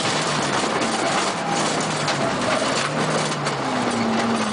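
Peugeot 206 rally car at speed on a gravel stage, heard from inside the cabin: the engine running under load beneath a dense hiss of tyre and gravel noise, with scattered clicks of stones striking the car. The engine note holds steady, then climbs near the end.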